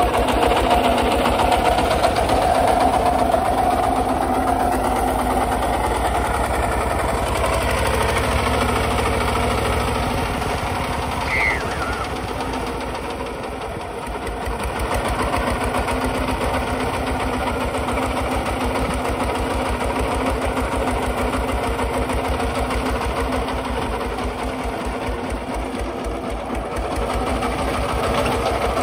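Kubota RT140 walk-behind tractor's single-cylinder diesel engine running steadily under load with a fast, even knocking beat as it pulls a plough through dry soil.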